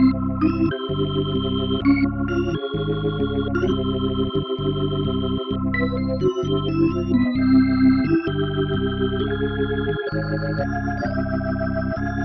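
Background music of sustained, organ-like chords that change about every second, broken by several brief gaps.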